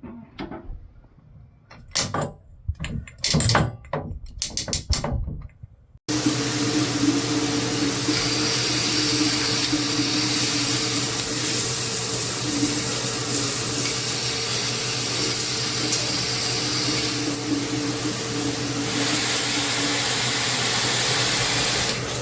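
A few sharp knocks and clicks, then, about six seconds in, a handheld shower head spraying water in a steady, loud hiss.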